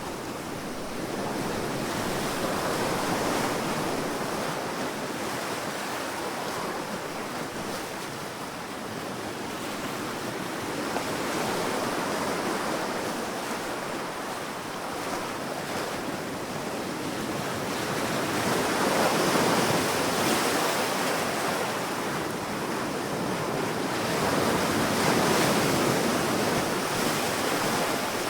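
Sea waves breaking and washing up on a sandy beach, a steady surf rush that swells and eases every few seconds, with louder surges a little before the middle and again towards the end.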